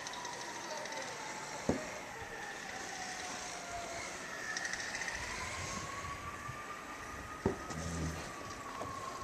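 Emergency vehicle siren wailing in the distance, its pitch slowly falling, rising and falling again. Two sharp knocks sound, one a little under two seconds in and one about seven and a half seconds in, with a low rumble between them.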